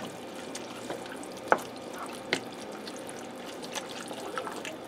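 Wooden spoon stirring a thick, wet mix of ground beef, chili beans and tomato sauce in a square Copper Chef XL pan: soft squelching, with two sharp clicks of the spoon against the pan.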